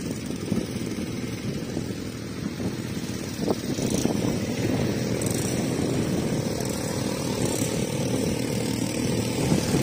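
Small quad-bike (ATV) engines running as the machines move off across sand, a steady engine rumble that grows a little louder partway through.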